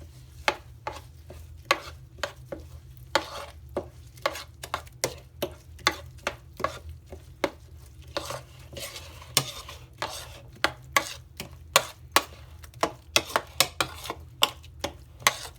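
A spoon stirring a thick yogurt-and-spice marinade paste in a bowl, clicking against the bowl in irregular taps a few times a second, over a steady low hum.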